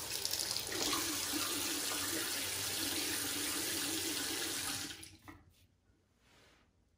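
Bathroom sink tap running, water pouring steadily into the basin, then turned off about five seconds in.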